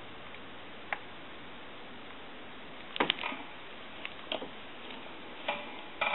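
Scattered light clicks and taps of small tools and parts being handled during soldering work on a telephone, over a steady faint hiss: one click about a second in, a cluster about three seconds in, and a few more near the end.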